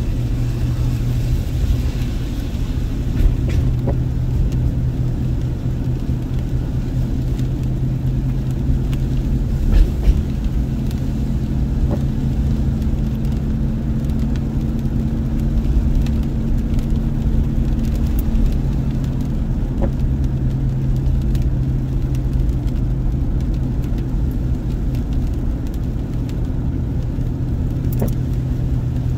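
Car driving on a wet road, heard from inside the cabin: a steady low engine and road drone, with a couple of brief knocks about ten seconds in.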